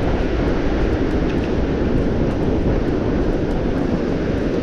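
Strong gusting wind buffeting the microphone: a loud, steady low rush with no break.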